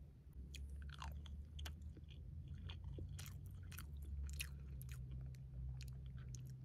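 A person chewing a mouthful of rice with canned ham and seaweed close to the microphone: faint, irregular small crunches and mouth clicks over a low steady hum.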